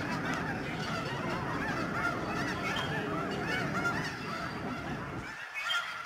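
A large flock of geese honking, with many short calls overlapping without a break.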